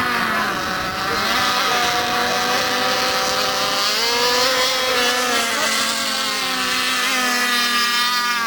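Several radio-controlled racing boats' motors running at once, high-pitched and whining, each pitch rising and falling as the boats throttle up and back.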